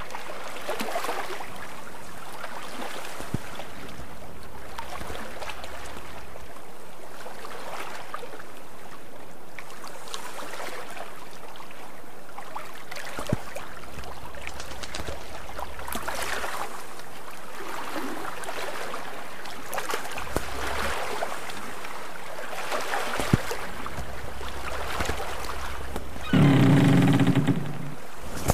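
Water rushing and splashing along a sailboat's hull under way, swelling and easing every few seconds, with a couple of sharp clicks. Near the end, a loud low pitched tone lasting about a second and a half.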